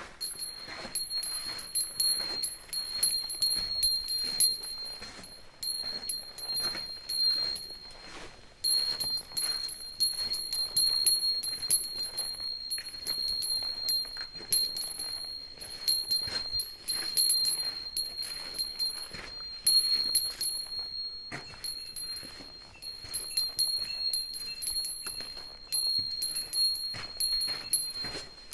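A small metal bear bell jingling continuously in rhythm with walking, a steady ringing tone over rapid clinks of its clapper. It stops briefly twice, once about eight seconds in and again around twenty-one seconds in.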